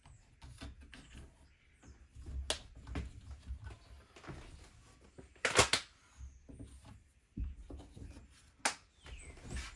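Hands pressing and tapping on a plastic roof-vent frame: scattered light clicks and knocks, with a louder clatter about five and a half seconds in and a sharp tap near the end.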